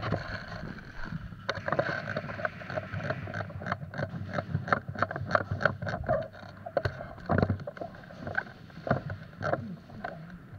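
Rustling and irregular knocks from a body-worn camera and its wearer's clothing and gear as the wearer moves about quickly.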